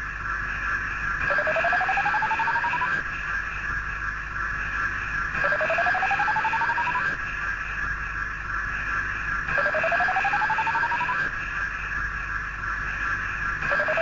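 Electronic science-fiction sound effect for the robot Gort: a steady pulsing hum with a rising tone that sweeps upward for about a second and a half, repeating about every four seconds.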